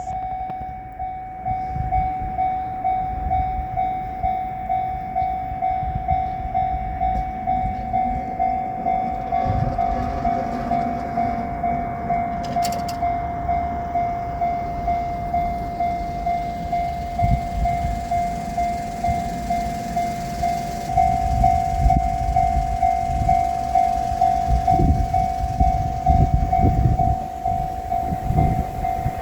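Japanese level-crossing warning bell ringing its steady, evenly pulsing electronic 'kan-kan' tone while the crossing is closed. From about 17 seconds in, a diesel railcar train runs over the crossing with a low rumble and wheel clatter, growing louder about 21 seconds in.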